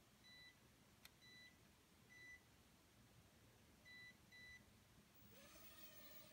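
Five short, high electronic beeps from a toy quadcopter's remote, with a single click among them. About five seconds in, a whine starts, rises and then holds steady: the tiny quadcopter's motors spinning up.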